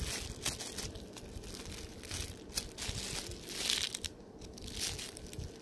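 Clear plastic packaging crinkling and rustling in the hands, in short irregular bursts, as a squishy toy is handled in its see-through bag.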